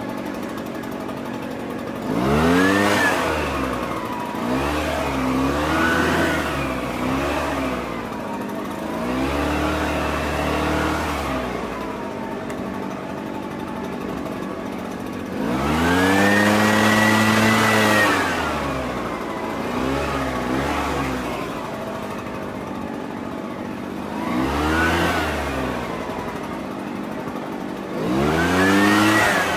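Small petrol engine revved up and down again and again, about seven times, each rev rising and then falling in pitch, over a steady lower drone; the longest and loudest rev comes about halfway through.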